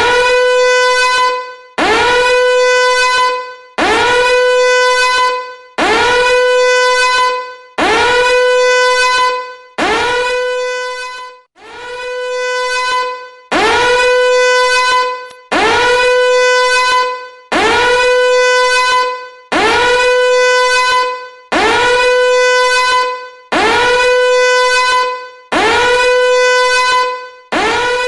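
A loud, buzzy horn-like tone blown in regular blasts about every two seconds, each swooping up in pitch at its start, then holding steady for under two seconds before fading.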